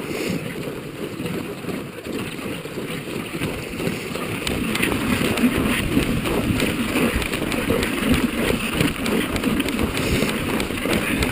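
Dog-sled runners sliding over packed snow, with boots crunching in the snow as the musher pedals and runs behind the sled. It gets louder after about four seconds.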